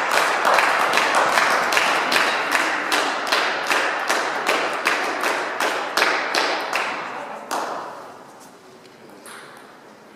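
A small crowd of spectators clapping after a point in a table tennis match, dense and irregular, dying away about eight seconds in.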